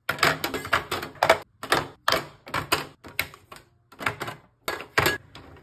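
Rapid, irregular clacking of plastic skincare bottles and caps being handled and set down in a clear acrylic organizer, about fifteen sharp knocks at two to three a second.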